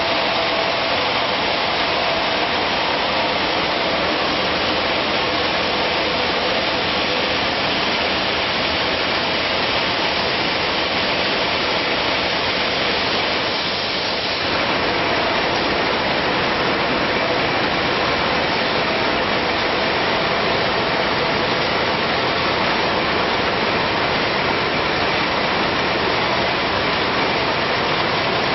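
Pop-up facial tissue production line machinery running: a loud, steady mechanical din with a faint steady hum in it.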